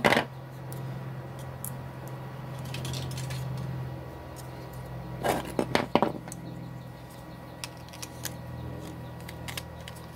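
Hard plastic clicks and knocks from a black plastic enclosure frame and a T-Beam circuit board being handled, loudest right at the start and in a cluster about five to six seconds in. Under them runs a steady low engine drone from a vehicle with a really loud exhaust, dying away near the end.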